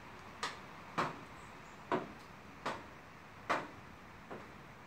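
A run of faint, sharp clicks, about one a second and unevenly spaced, over a quiet background.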